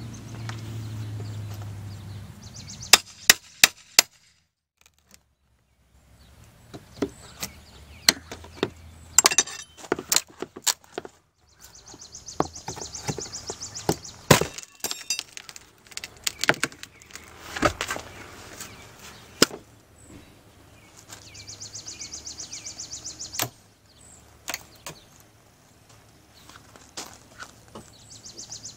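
A hammer and pry bar tear old wood corner trim off a wall: sharp knocks, taps and cracks of splitting wood in irregular clusters, with a short silent gap about four seconds in. A high, rhythmic buzzing comes and goes in the background.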